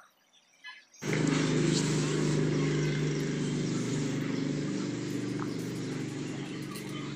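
An engine running steadily, starting abruptly about a second in and slowly getting quieter.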